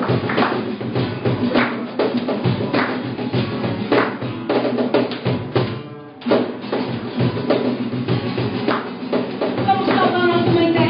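Live acoustic band playing, with acoustic guitars and a cajón keeping a steady beat. The playing drops away for a moment about six seconds in and comes back on a hit, and a woman's singing voice comes back in near the end.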